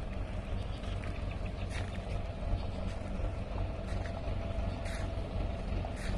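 Farm tractor engine idling steadily, a low even hum with a few faint clicks on top.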